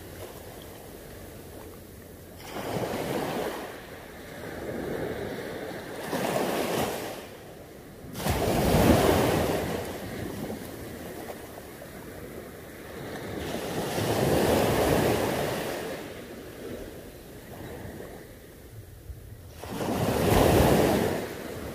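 Sea waves breaking and washing up a beach, in surges every few seconds; the loudest comes about nine seconds in, with others about fifteen seconds in and near the end.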